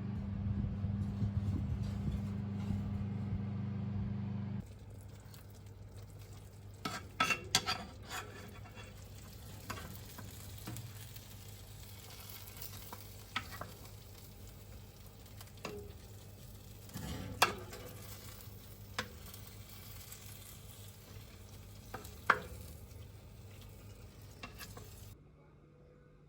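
Food sizzling in a frying pan while a utensil stirs it, with several sharp clinks of metal against the pan. A louder steady hum runs through the first few seconds and then cuts off abruptly.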